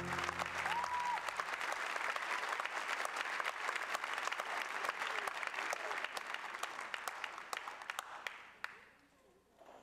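Theatre audience applauding, the last chord of the music dying away in the first second; the clapping thins and fades out about a second before the end.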